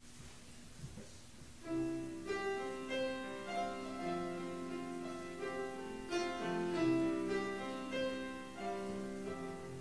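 Solo piano playing a slow introduction of held notes and chords, starting about two seconds in.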